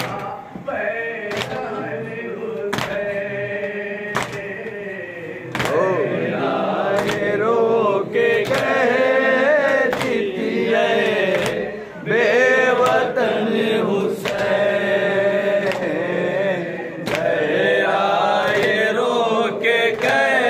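Men chanting a noha, a Muharram lament for Hussain: a lead reciter on a microphone with the gathering chanting in chorus. Sharp slaps of hands beating on chests (matam) land about every second and a half, keeping time.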